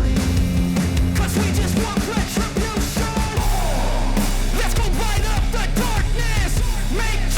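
Loud background rock music with a heavy bass line and drums.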